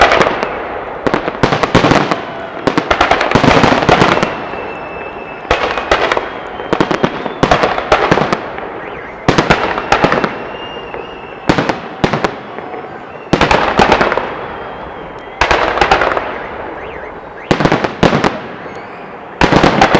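Fireworks salute: clusters of loud bangs every two seconds or so, each dying away in a fading rumble before the next volley.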